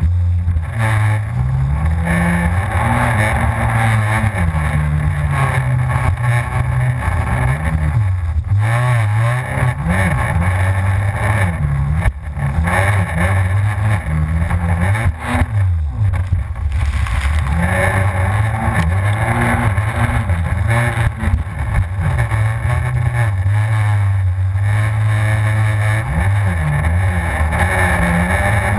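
Yamaha FZS WaveRunner personal watercraft's four-stroke engine running hard while wave jumping. Its pitch rises and falls over and over, with a couple of brief dips.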